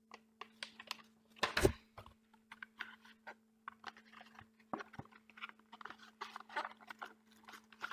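Irregular rustling, crinkling and tapping of a Yu-Gi-Oh structure deck's cardboard box and packaging being handled and worked open by hand, with a louder crackle about a second and a half in.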